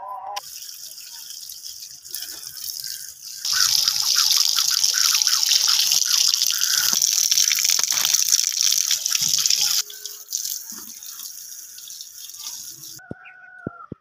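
Water running from a tap onto produce in a plastic colander, splashing as it is rinsed. The flow gets much stronger about three seconds in, eases off near ten seconds, and stops about a second before the end.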